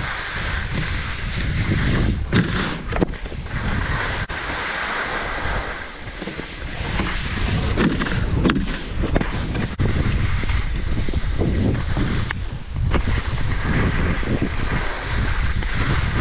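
Wind buffeting the microphone of a camera carried by a skier going downhill, over the steady hiss and scrape of skis sliding on snow.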